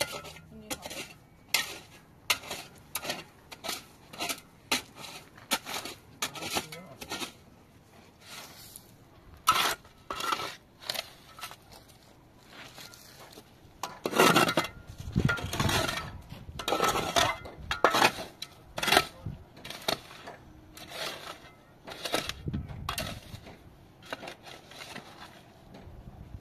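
Steel shovel blades scraping and chinking into stony, gravelly soil as a trench is dug, stroke after stroke. There is a run of louder, longer scrapes about halfway through.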